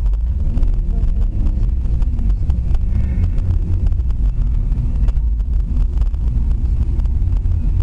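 Steady low rumble of a car on the move, road and engine noise with wind buffeting the microphone.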